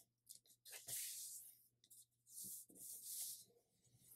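A sheet of 24-pound paper rustling and sliding under the hands as fingers press a fold flat and shift the sheet across a cutting mat: a few soft, hissy swishes with faint ticks.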